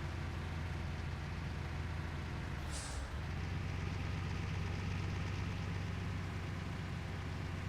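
A water truck's diesel engine running steadily. About three seconds in there is a short hiss of compressed air as the engine note briefly dips.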